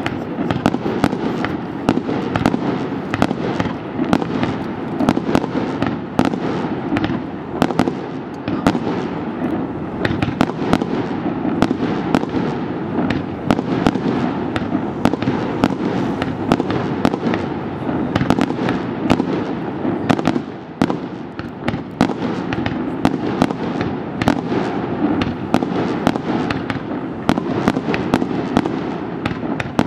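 Aerial fireworks bursting in a rapid, continuous string of bangs and crackles, several a second, over a steady rumble.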